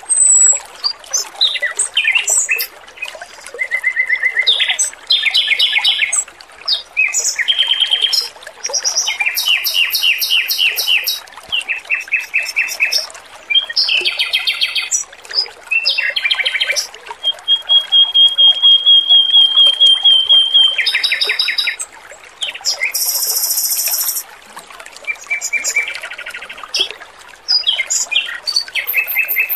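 Male red-billed leiothrix (Pekin robin) singing a string of quick trilled and buzzy phrases, with one long even trill about halfway through, over a steady trickling of water.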